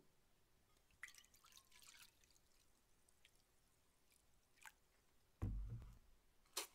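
Makgeolli poured from a plastic bottle into a stainless steel bowl: a faint trickle and light crackling of the bottle. About five and a half seconds in comes a dull thump as the bottle is set down on the wooden table, then a sharp click near the end.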